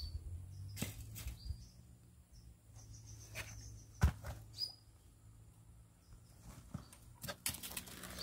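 Sparse light taps and rustles from a puppy nosing and licking a split coconut husk on concrete, with one sharper knock about four seconds in. A few short bird chirps are heard over a faint low hum.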